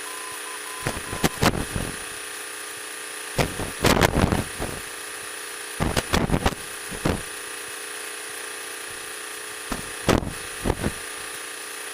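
Light-aircraft headset intercom audio: a steady electronic hum, broken about one, four, six and ten seconds in by clusters of short bursts of noise picked up by the headset microphones.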